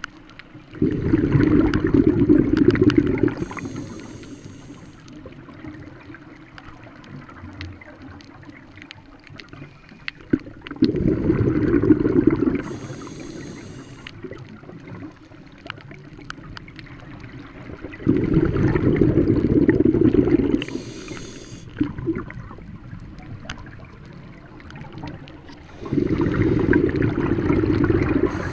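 Scuba regulator breathing underwater: four long bubbling exhalations, about every seven to eight seconds, each followed by a short hissing inhalation through the regulator.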